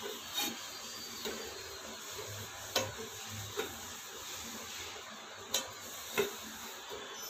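Wooden rolling pin rolling out poori dough on a stainless steel plate, with about six short clacks of the pin against the metal over a steady faint hiss.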